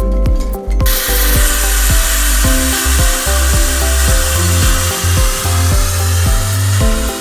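Chestnut pressure roaster releasing its steam: a loud hiss that starts suddenly about a second in and keeps going, over background music with a steady beat.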